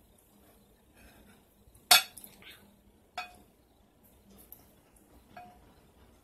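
Ceramic dishes clinking: a bowl knocks against a plate with one sharp clink about two seconds in, then two fainter clinks that ring briefly, about three and five seconds in.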